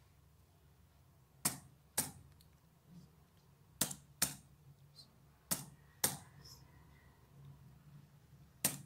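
Computer keyboard keys being pressed one at a time as a Wi-Fi security key is typed in: about eight sharp clicks, spaced unevenly, mostly in pairs about half a second apart.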